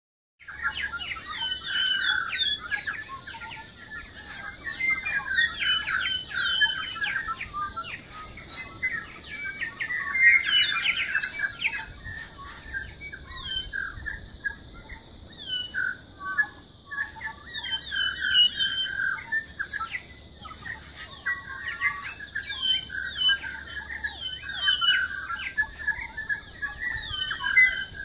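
Chorus of many New Zealand bellbirds (korimako) singing together, dense overlapping chirps and short gliding notes that swell and ebb in waves.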